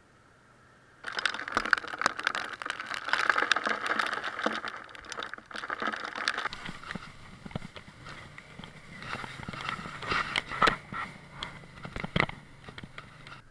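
Water spray from a roadside waterfall pattering and crackling on the action camera's housing as the motorcycle rides through, starting suddenly about a second in and heaviest for the first few seconds. In the second half the crackles thin out over a low rumble.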